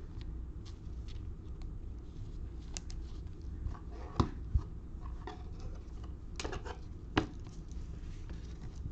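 Trading cards and their cellophane pack wrappers being handled: a few sharp clicks and crinkles, loudest about four seconds in and again about seven seconds in, over a steady low hum.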